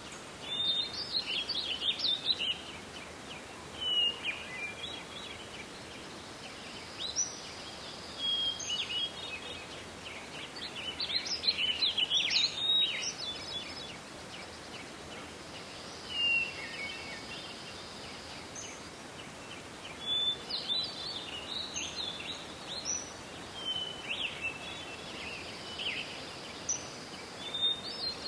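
Birds singing: short bursts of chirping and twittering phrases every few seconds over a steady background hiss.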